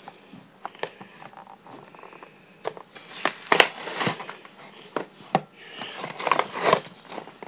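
A toy figure's packaging being handled and opened: scattered clicks and crinkling, with denser crackling bursts about three seconds in and again near the end.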